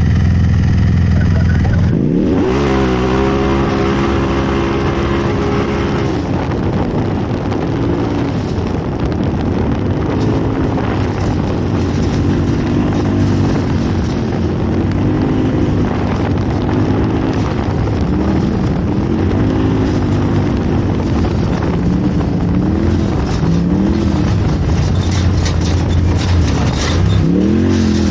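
Off-road race vehicle engine: a steady drone that jumps sharply in pitch about two seconds in and holds high for a few seconds, then rises and falls again and again, every second or two, as the throttle comes on and off.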